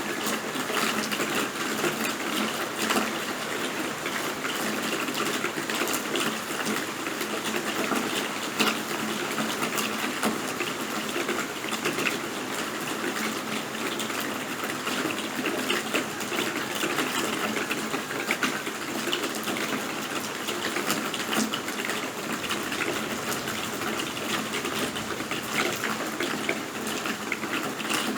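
Steady rain falling, a dense even hiss with many small sharp drop ticks throughout.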